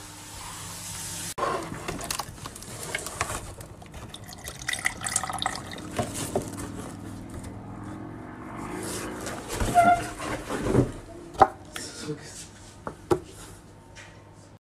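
Cardboard box and plastic packaging being handled, with scattered rustles, clicks and knocks that come more often and louder in the second half.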